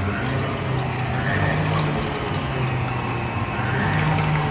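Electric stand mixer running, its wire whisk beating eggs, brown sugar and oil in a stainless steel bowl: a steady motor hum.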